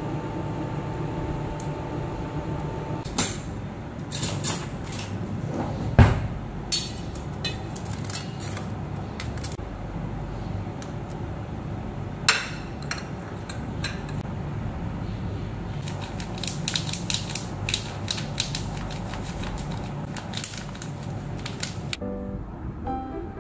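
Metal spoon clinking and scraping against a stainless steel bowl and a plate as baked egg-stuffed bell peppers are lifted out, a string of sharp clicks and knocks over a steady low hum, the loudest knock a few seconds in. Music starts near the end.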